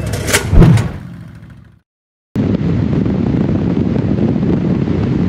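Logo sting sound effect: two sharp hits less than a second in, dying away to silence. After a short gap, steady wind rush and road noise on a camera mounted on a 2021 Honda Goldwing 1800 riding at highway speed.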